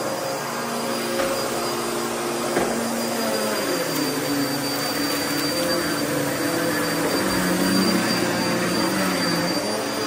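Hose-type vacuum cleaner running on carpet: a steady motor whine with a lower drone that shifts in pitch as the nozzle is worked, and a couple of small clicks about a second and two and a half seconds in.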